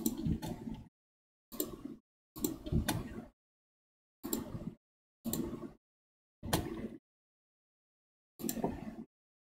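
Computer mouse and keyboard clicks in seven short bursts, each cut off into dead silence between.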